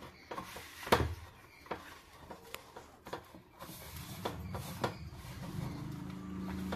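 Hand mixing and rubbing crumbly flour dough in a steel bowl, with scattered light clicks and knocks against the steel, the sharpest about a second in. A steady low hum comes in about halfway.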